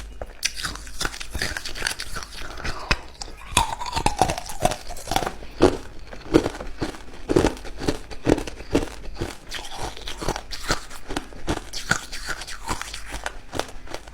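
Ice cubes being bitten and crunched between the teeth: a fast, irregular run of sharp crunches and cracks.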